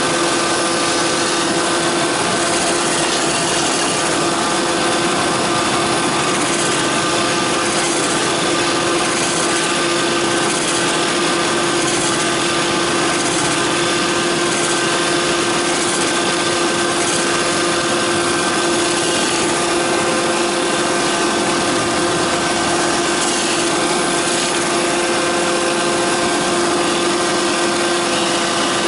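Roomba 531 robot vacuum running, recorded from a camera riding on the robot: a steady motor whir with a constant hum over a dense brushing hiss.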